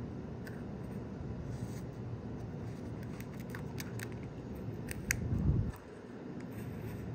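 Hobby knife cutting the excess tape around a scope turret's range band: a run of light, sharp clicks from the blade as the turret is turned against it. There is a low handling rumble throughout and a dull bump about five seconds in.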